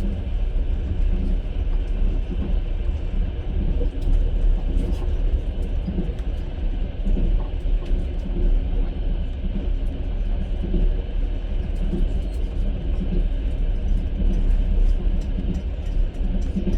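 A long-distance passenger train running along the track, heard from inside the carriage: a steady low rumble with the clatter of the wheels, and scattered light clicks that come more often near the end.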